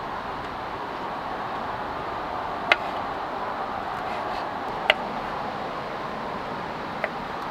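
Kitchen knife cutting chanterelle mushrooms on a wooden cutting board: three sharp knocks of the blade on the board, about two seconds apart, over a steady rushing noise.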